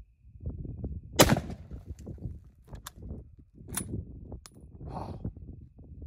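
A single shot from a Remington 700 bolt-action rifle in .30-06, firing a black-tip armor-piercing round, about a second in. A few lighter sharp clicks follow over low background rumble.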